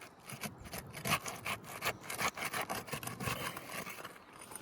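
Roof Snake shingle tool scraping under an asphalt shingle in a run of irregular strokes, breaking the shingle free of its sealant strip.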